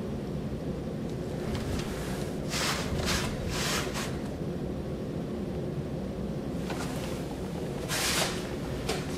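Handling noise of a VHS cassette and its cardboard sleeve: a quick run of about four short scraping rustles, then two more a few seconds later, over a steady low background hum.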